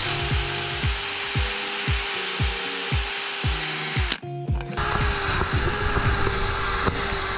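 Cordless drill spinning a wire wheel brush against the metal end of an exhaust flex pipe, scrubbing it clean with a steady high whine and hiss. It stops briefly about four seconds in, then starts again.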